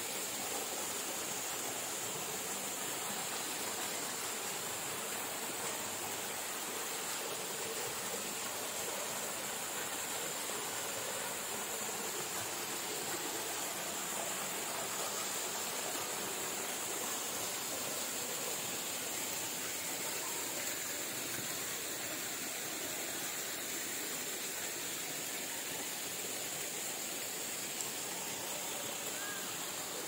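Small waterfall pouring down rock into a plunge pool: a steady rush of falling and splashing water.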